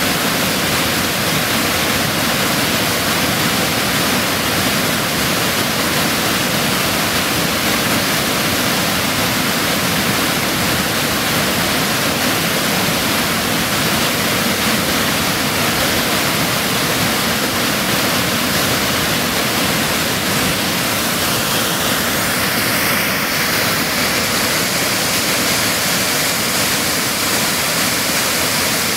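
Loud, steady rush of white water pouring over a waterfall.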